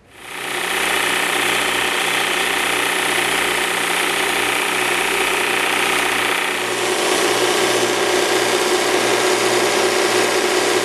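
Kalamazoo belt sander's motor starting and spinning up to speed, then running steadily while the edges of a thin cedar board are sanded against the belt. The sound shifts slightly about two-thirds of the way through.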